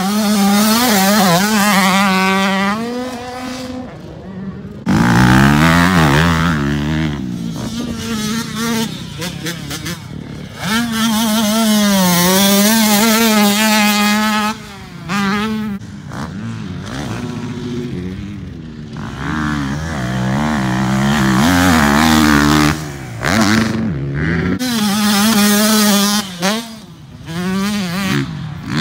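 Dirt bike engines revving hard as motocross riders ride past, the pitch climbing and dropping over and over with throttle and gear changes. Several loud passes, with brief lulls between them.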